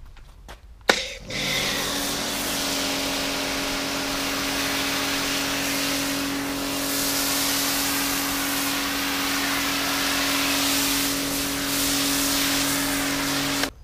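Kärcher pressure washer running steadily, its motor and pump humming under a loud hiss of spray from a snow foam lance. It starts with a sharp click about a second in and cuts off suddenly just before the end.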